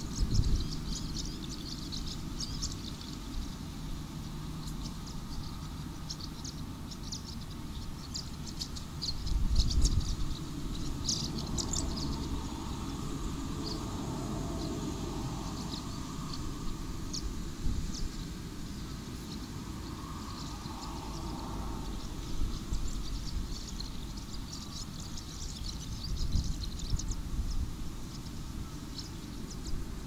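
Many small birds chirping in a dense, high-pitched chorus, over a steady low rumble that swells briefly about ten seconds in.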